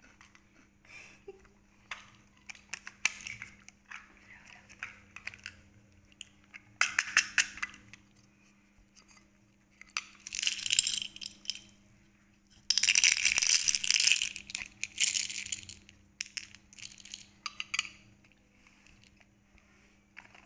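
Small candies rattling inside a round clear plastic compartment container as it is picked up and shaken, in several noisy bursts of one to three seconds, with light plastic clicks and taps between them.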